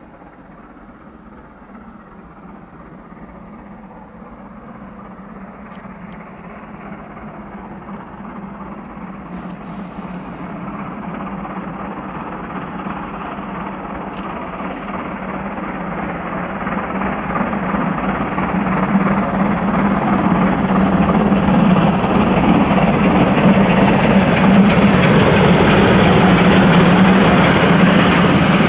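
Steam locomotive 03 1010, a three-cylinder German express engine, working its train on the approach, growing steadily louder as it draws near and passes close by.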